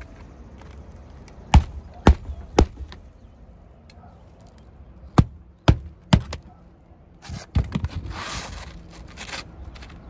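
Hammer blows on a shingle roof: two sets of three sharp strikes about half a second apart, then a couple of seconds of scraping and rustling.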